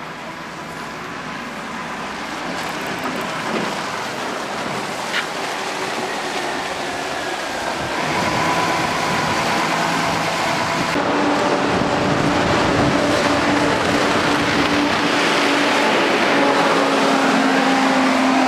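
A bus running, its engine and road noise growing steadily louder as it draws near, with a steady engine hum coming in around the middle.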